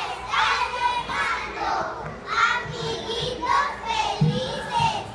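A group of young children singing together, their high voices overlapping.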